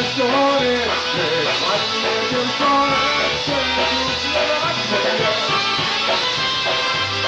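Live polka band playing a polka, a melody line moving over repeating bass notes.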